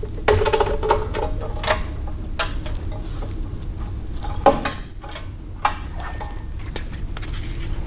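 Metal clicks and clanks from hands working the top wheel and abrasive belt of a Burr King belt grinder: a quick run of ringing clanks near the start, then single knocks spaced through the rest, over a steady low hum.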